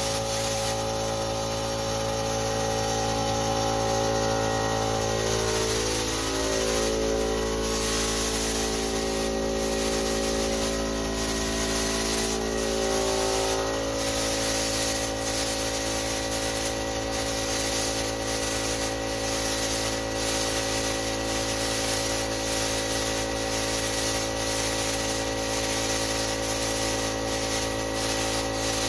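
Compressed-air siphon-cup spray gun hissing steadily as it sprays paint, driven by a small air compressor. A hum of several steady tones runs underneath, shifting in pitch for a few seconds about a third of the way in.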